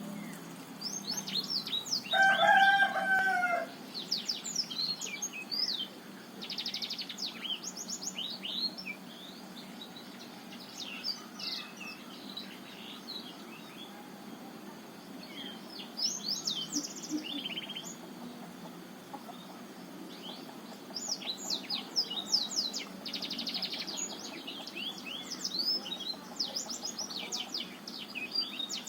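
Black-throated canary (blackthroat) singing bouts of rapid, high twittering phrases with short pauses between them. About two seconds in, a louder, lower drawn-out call sounds once for over a second.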